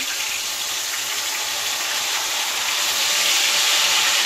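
Marinated chicken pieces deep-frying in hot oil in a steel kadhai: a steady sizzle that grows a little louder as more pieces go into the oil.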